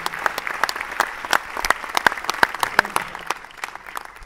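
Audience applauding: many hands clapping at once, tapering off toward the end.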